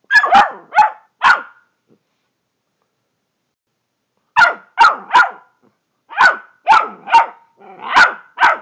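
Chocolate Labrador retriever barking: a quick run of about four barks, then, after a pause of nearly three seconds, a longer run of about eight barks.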